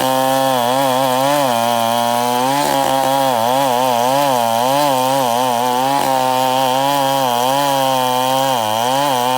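Two-stroke chainsaw running at high revs while ripping wood into boards, its engine pitch repeatedly dipping and recovering as the chain bites into the cut.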